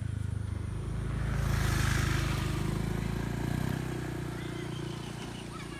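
Motor scooter engine running close by, getting louder to a peak about two seconds in, then dropping back to a steady hum. Short bird chirps come in near the end.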